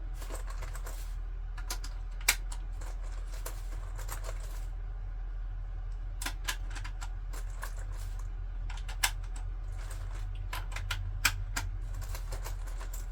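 Rifle cartridges being pressed one at a time into an AR-15 magazine: sharp clicks at irregular intervals over a steady low hum.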